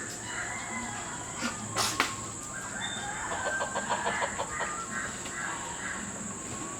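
Chickens clucking, with a sharp knock about two seconds in. A steady high hiss runs underneath.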